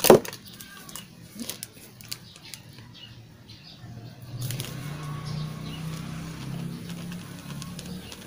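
Plastic bag of baking soda rustling and crinkling as it is opened and handled, starting with one sharp knock. A low steady hum comes in about halfway through.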